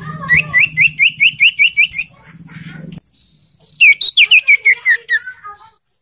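Young common iora calling: a quick run of about eight rising whistled notes, then after a short pause a string of whistles that step steadily down in pitch.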